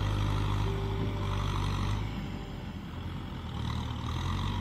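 Kubota tractor's diesel engine running steadily under load as its front blade pushes mud through the water. It eases off a little about halfway through.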